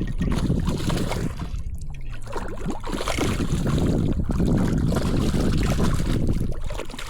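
Wind rumbling and buffeting on the microphone, with water sounds from the lake.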